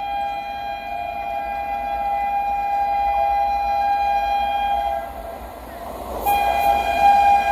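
Indian Railways locomotive horn on an express train running through the station at speed: one long steady blast that stops about five seconds in, then a second blast starting just past six seconds, with the train growing louder as it approaches.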